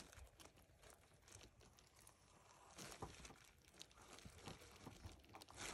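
Faint crinkling and scraping: a hand fillet knife slicing the rib cage out of a trout fillet on a plastic sheet, with small scattered ticks and a couple of slightly louder strokes.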